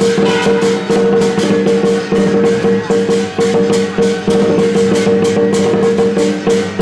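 Lion dance music: fast, even drum and cymbal beats, about five a second, over steady held tones.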